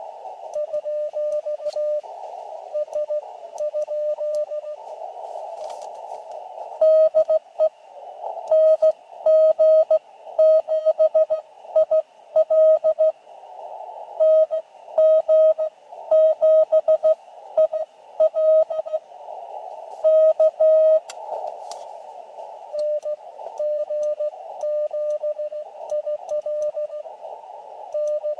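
Morse code (CW) from an Elecraft KX2 transceiver during a two-way contact: single-pitch beeps keyed on and off over the hiss of the radio's narrow CW filter. A fainter keyed signal comes near the start and again near the end, and a much louder, slightly higher one runs through the middle.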